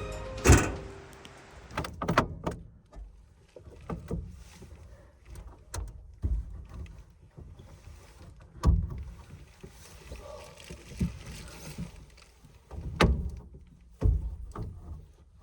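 Irregular knocks and thumps, about a dozen spread a second or two apart, with faint rustling between them, like gear being handled and someone moving about.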